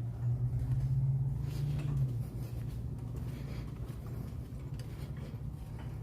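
A steady low mechanical hum, louder for about two seconds near the start, with a few faint clicks.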